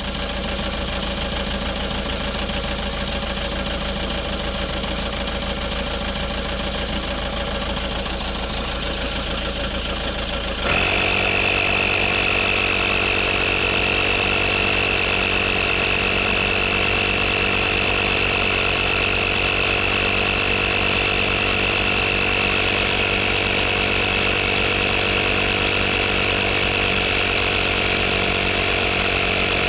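Car engine idling, then about ten seconds in a 12-volt digital tyre inflator's compressor starts and runs steadily, louder, with a high whine over a fast, even chatter as it pumps up the tyre.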